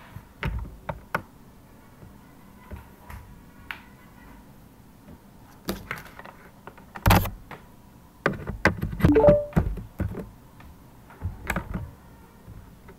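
Irregular knocks and thumps, with a loud one about seven seconds in and a dense cluster of them between about eight and ten seconds.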